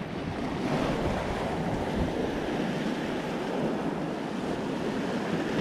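Sea surf washing over a rocky shore ledge, a steady rush that swells about a second in, with low wind buffeting on the microphone.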